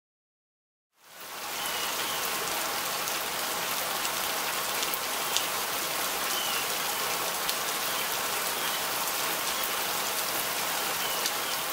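Steady rain falling on a house roof and gutter, with scattered sharp drop hits; it fades in about a second in.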